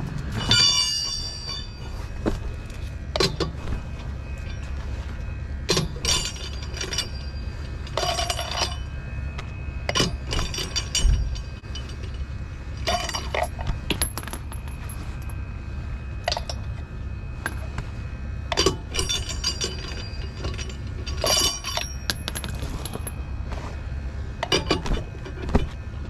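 Chrome four-way lug wrench clinking and knocking against the lug nuts of a Toyota Tacoma's alloy wheel as it is fitted and worked, in many short metallic clinks, some ringing briefly. A steady low rumble runs underneath.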